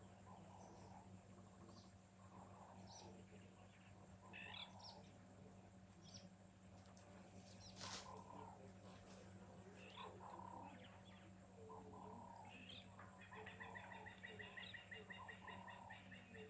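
Faint garden birdsong: several birds chirping and calling at intervals, with a fast trill of evenly repeated notes starting about two-thirds of the way in.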